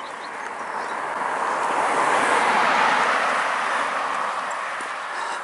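A car passing on the road: its tyre and engine noise swells to a peak about halfway through, then fades as it moves away.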